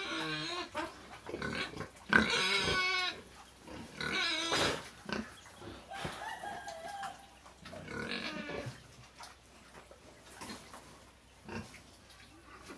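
Pigs in a pen calling: a run of pitched calls in the first nine seconds, the loudest about two seconds in, then only faint scattered clicks.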